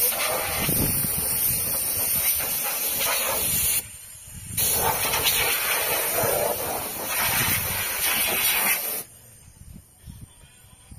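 High-pressure hose spray gun hissing as it sprays into a pickup's engine bay, in two long bursts with a short break about four seconds in. The spray stops about nine seconds in.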